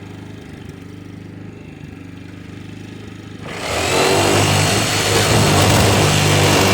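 Tractor engine running at low speed, then throttled up about three and a half seconds in and running loud and steady at high revs.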